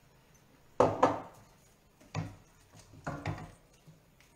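Wooden spoon knocking and scraping against a metal frying pan while stirring gnocchetti. There are about five knocks, the first two about a second in the loudest.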